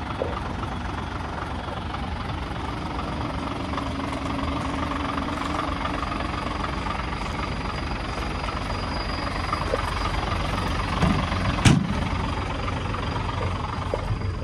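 Nissan UD CGB483 truck's GE13-TB diesel engine idling steadily, with a single sharp knock late on.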